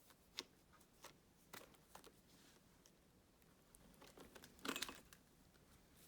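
Faint, scattered clicks and rustles of an Oreck XL2 upright vacuum being handled, with a louder rustle near the end.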